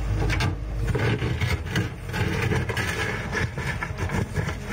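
Hitachi Zaxis 135US excavator's engine running while its bucket digs into a pile of rubble, with stones scraping and clattering irregularly against the steel bucket from shortly after the start.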